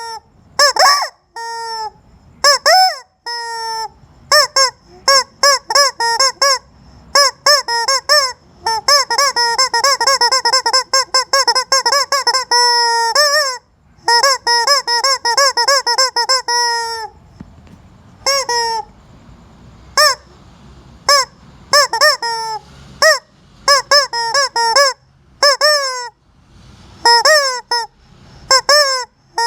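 Squeaky rubber chicken toy squeezed over and over, giving loud honking squeals in quick runs, some short and some drawn out, with brief pauses between runs.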